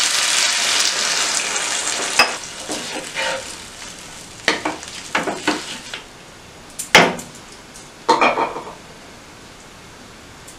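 A glass of water poured into a hot non-stick pan of chicken frying in masala, setting off a hissing sizzle that dies away over about four seconds. A wooden spatula then stirs and scrapes the curry in several short strokes, the sharpest about seven seconds in.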